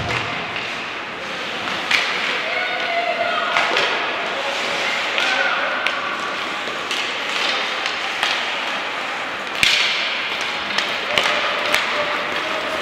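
Ice hockey play: irregular sharp clacks and knocks of sticks, puck and boards over steady rink noise, the loudest knock about ten seconds in.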